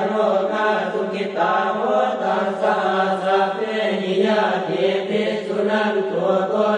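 Group of Buddhist monks chanting in unison, a continuous recitation held on a steady low pitch without pause.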